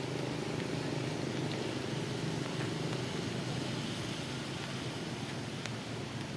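A steady low mechanical hum with a faint even hiss behind it, holding unchanged throughout.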